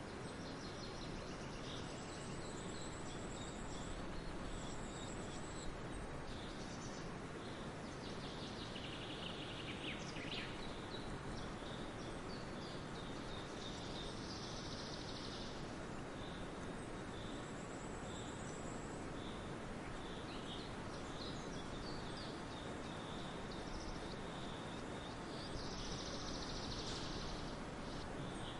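Several songbirds chirping and trilling on and off over a steady rushing background noise.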